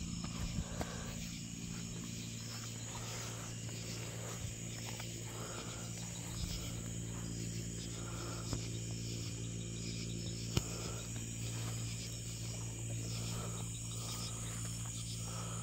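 A steady chorus of insects chirping, high-pitched and unbroken, over a low steady hum. A few soft ticks sound near the start and one sharp click about ten seconds in.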